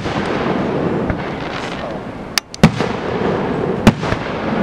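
Aerial fireworks bursting: a sharp bang at the start, two more close together past halfway and another about a second later, with continuous crackling between them.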